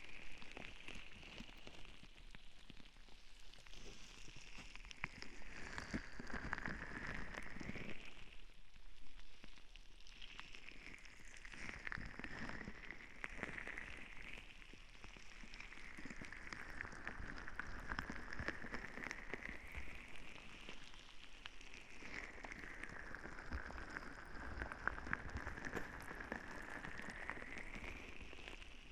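ASMR relaxation ball rubbed and rolled over a binaural ear microphone: a soft, dense crackling rustle that swells and eases in slow sweeps every few seconds.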